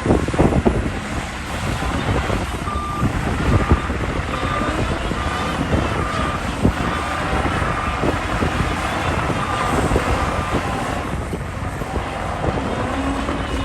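Heavy diesel earthmoving machinery running, with wind noise on the microphone and a few sharp knocks. About three seconds in, a reversing alarm starts beeping at roughly one and a half beeps a second and stops about ten seconds in.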